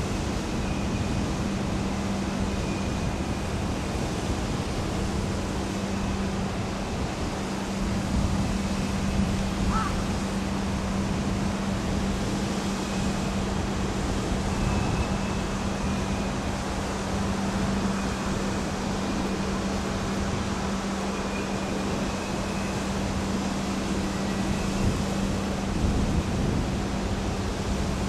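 EF210 electric freight locomotive crawling past at very low speed with a train of tank wagons: a steady noisy rumble under a constant low hum, with faint high squeals now and then.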